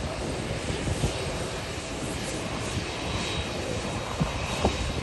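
Boeing 767 airliner's twin jet engines running at low taxi thrust as it rolls by, a steady rushing hum with a faint high whine coming in about three seconds in.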